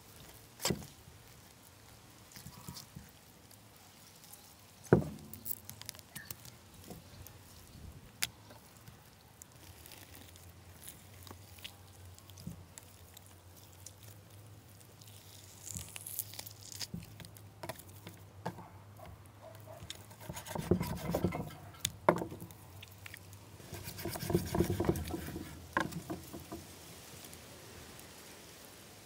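Food preparation by hand: scattered light knocks and clicks of utensils and ingredients being handled, the loudest knock about five seconds in, with two busier stretches of handling and rustling a little after twenty seconds.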